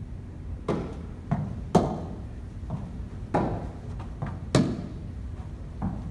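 Tennis balls being struck back and forth with racquets in a rally. There are four sharp hits about a second or so apart, with quieter ball bounces between them, echoing in a large hall.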